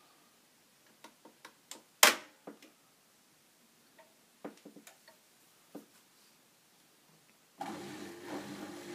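Front-loading washing machine starting a 60-degree wash: scattered soft clicks and one loud sharp click about two seconds in, then a steady hum starts near the end as the machine begins running.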